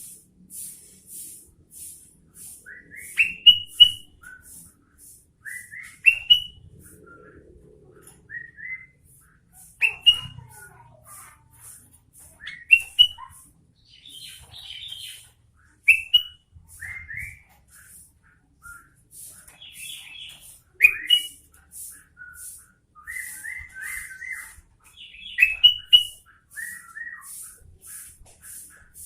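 Sooty-headed bulbul (kutilang) singing: short, loud, rising whistled phrases repeated every few seconds, with softer chattering notes between them. A steady high-pitched ticking, about two a second, runs underneath.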